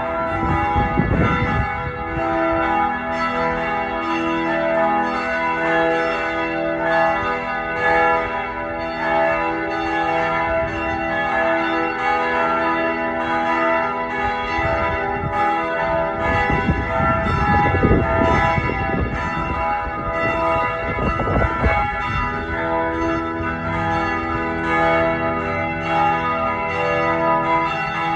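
Church bells ringing continuously, many bells struck in quick succession so their tones overlap. Low rumbling gusts come through about a second in and again for several seconds past the middle.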